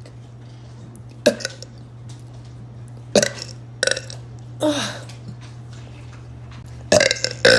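A young woman burping: a series of short burps spread a second or two apart, then a louder, longer burp near the end. A steady low hum runs underneath.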